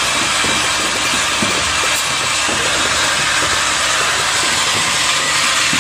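Automatic ball valve assembly machine running: a loud, steady hiss with frequent small irregular clicks and knocks from its moving parts.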